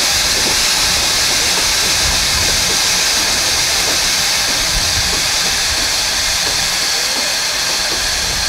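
Steady, loud hiss of escaping steam from a 1924 Baldwin 2-8-0 Decapod steam locomotive.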